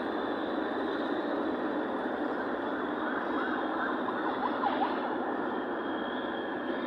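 Steady road and engine noise of a vehicle on the move, with a few short, high squeaks about three to five seconds in.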